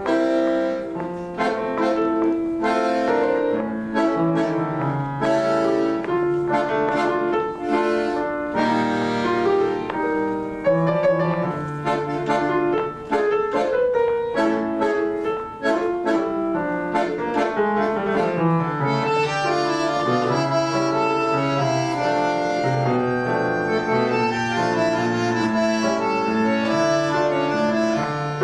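Two bandoneons and a piano playing a tango waltz. The piano's struck notes stand out for the first two-thirds, then held bandoneon chords fill in densely toward the end.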